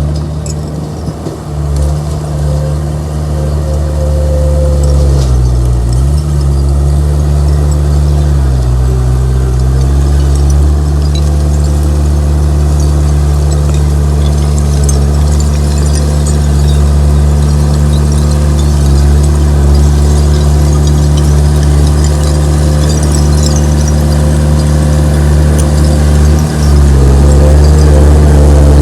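Komatsu D31P bulldozer's diesel engine running steadily, its pitch dipping briefly about five seconds in, again a few seconds later, and once more near the end.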